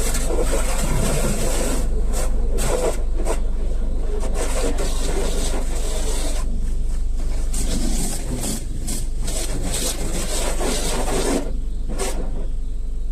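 Gas-station automatic car wash brushes scrubbing against a car's body: a rough rubbing swish that swells and fades over a steady low machine hum.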